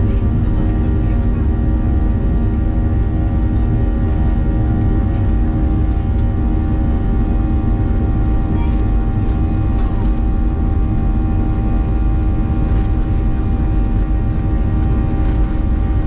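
Boeing 737 jet engines running steadily, heard from inside the passenger cabin: a deep rumble with several steady whining tones above it.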